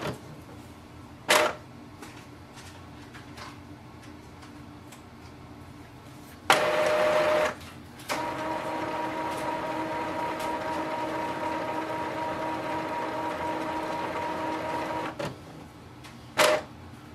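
Epson inkjet printer running a printhead cleaning cycle, its motors whirring in stages. There is a short burst a little over a second in, a louder burst of about a second at six and a half seconds, then a steady pitched whir lasting about seven seconds, and another short burst near the end.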